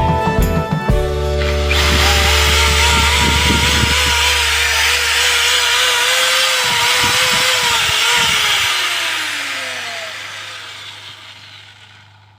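A machine whine with a wavering pitch over a loud hiss, which falls slowly in pitch and fades away near the end, like a motor winding down. It starts as music fades out.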